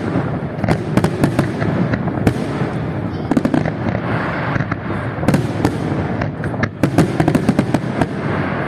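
Fireworks display: a continuous rumble of shell bursts under many sharp crackling pops, coming in quick clusters.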